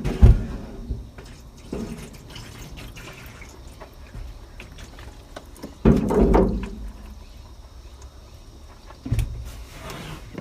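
Water splashing and dripping while a truck windshield is washed, in a few separate bursts, the strongest about six seconds in.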